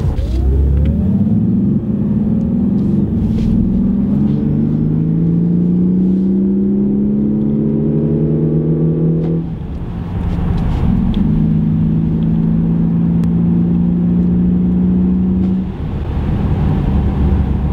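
Lexus RC 300h hybrid's 2.5-litre four-cylinder engine pulling under acceleration, heard from inside the cabin, its pitch climbing steadily for about eight seconds before it cuts off suddenly. After a short lull it runs again at a steady pitch for about five seconds, over constant road noise.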